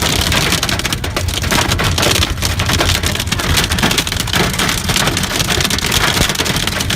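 Hailstones and heavy rain pelting down in a dense, steady patter of countless small hits.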